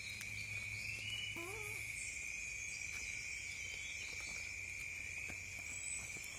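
Steady, high-pitched chorus of insects, unbroken throughout. A brief wavering call sounds once about a second and a half in.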